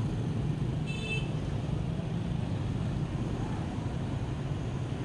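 Steady low rumble of street traffic, with a short high-pitched beep about a second in.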